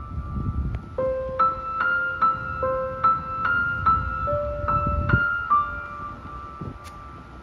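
Background piano music: a melody of clear notes, each held and overlapping the next.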